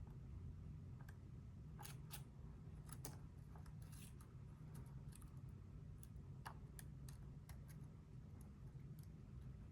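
Faint, irregular small metallic clicks and scrapes of a pick and tension tool working the pins of a Bovii dimple lock.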